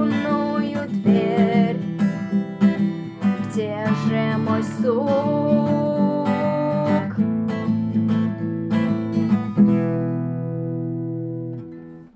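Acoustic guitar being strummed, with a voice holding long wavering notes over it for the first seven seconds or so. The strumming stops near ten seconds in, and a last chord rings out and dies away.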